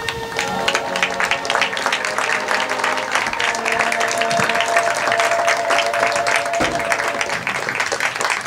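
Applause: many hands clapping together, over a few held musical notes.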